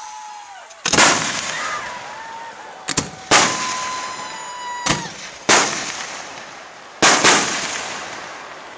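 Aerial firework shells bursting: about seven sharp bangs, some in quick pairs, each followed by a long rolling echo. A thin steady whistling tone sounds between the bangs in the middle.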